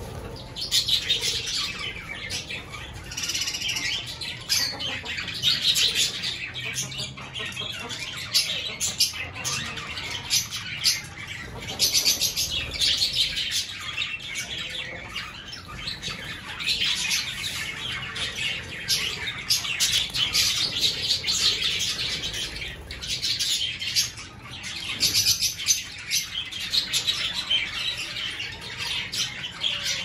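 A flock of budgerigars chattering in an aviary: a dense, continuous warble of chirps and sharp squawks that swells and eases every few seconds.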